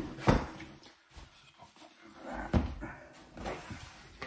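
Cardboard box being handled and its lid flap opened: a few sharp knocks and thuds of cardboard, the loudest just after the start and another about two and a half seconds in, with light rustling between them.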